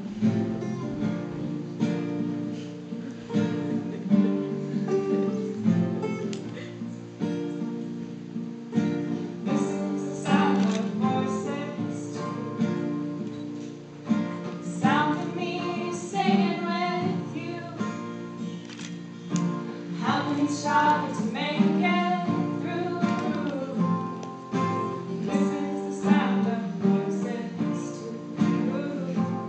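Two acoustic guitars strummed together in a steady song accompaniment, with women singing over them from about ten seconds in, in phrases with short gaps.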